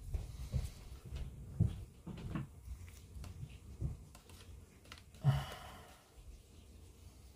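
Hands handling a plastic model kit and masking tape on a cutting mat: scattered soft taps, clicks and rustles, with one short, louder rasp about five seconds in.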